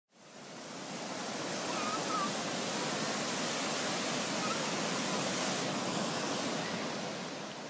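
Steady rushing noise that fades in over the first second and fades out near the end, with a few faint short chirps in it.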